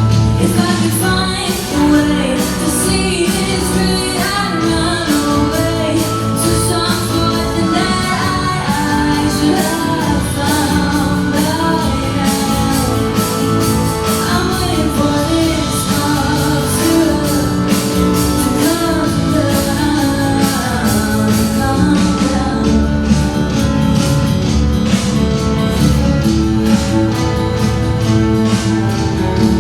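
A female singer performs a song live with band accompaniment including guitar. About three quarters of the way through, the singing gives way to the band playing on with a steady beat.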